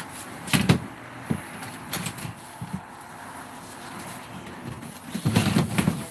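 Scattered knocks and clunks, then a denser clatter near the end, as something stiff is worked at to get it open.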